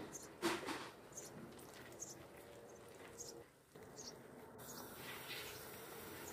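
Fig jam simmering in a stainless steel pan, with faint bubble pops about once a second. Lemon juice is poured in with a brief splash about half a second in.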